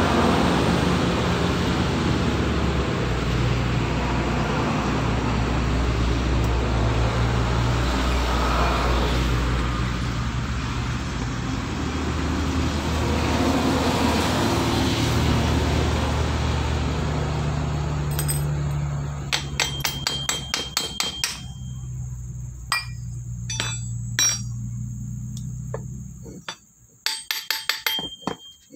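A motor vehicle engine running steadily with general road noise. About two-thirds of the way in, a run of sharp metallic clinks and taps with a short ring sets in: steel tools on the aluminium housing of an Isuzu Panther starter motor as it is taken apart.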